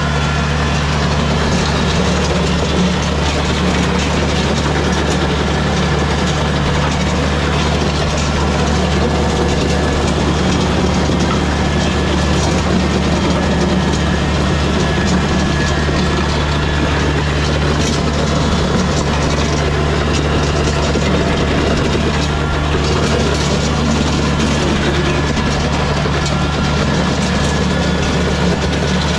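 Kubota BX23S compact tractor's three-cylinder diesel engine running steadily under load while it pulls a 60-inch Dirt Dog land plane, with the plane's steel blades scraping and churning gravel and dirt.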